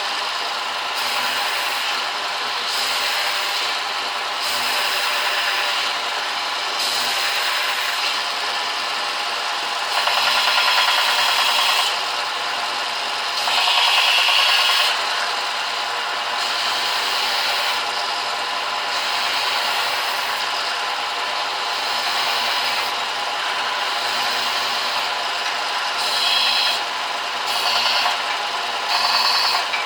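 Belt sander running, a steady motor whine under the rasp of the moving belt, with louder rubbing stretches as something is pressed against the belt, several short ones in quick succession near the end.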